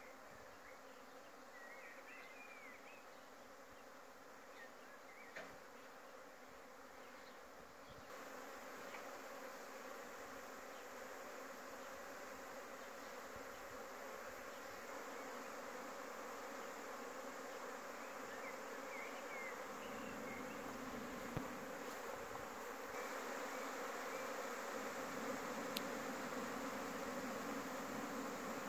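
Many honeybees flying around their hives: a steady buzzing hum that grows gradually louder, with a few faint chirps.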